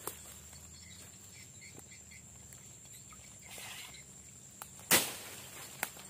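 Swamp ambience: a steady high-pitched insect drone with a few faint bird chirps. About five seconds in comes a single sudden, loud, sharp slap, the loudest sound.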